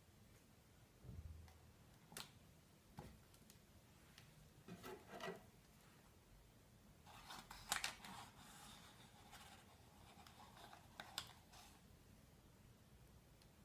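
Faint handling sounds of a cardboard cocoa box being moved and a metal teaspoon scooping cocoa powder from it: scattered soft knocks and rustles, busiest and loudest about eight seconds in.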